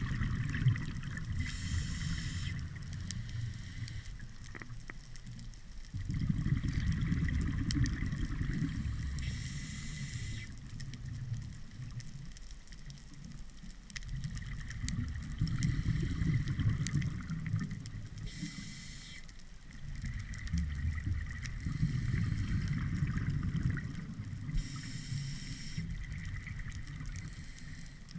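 A scuba diver breathing through a regulator underwater: a short hiss on each inhale, then a longer low bubbling rumble as the exhaled air bubbles out, about four breaths in a slow, even rhythm.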